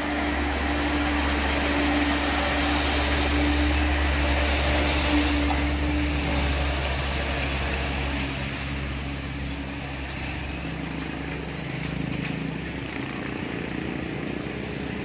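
Heavy diesel trucks labouring past at low speed on a steep climb. The steady engine drone is loudest in the first half, then eases off, and lighter traffic passes later on.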